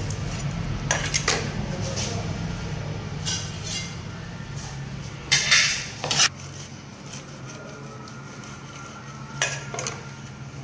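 Large knife blades clinking and knocking against metal and the cutting board during tuna butchering: scattered sharp clanks, the loudest a pair a little past halfway, over a steady low hum.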